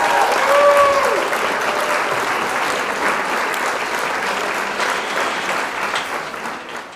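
Applause, with a few cheering voices in the first second, tapering off toward the end.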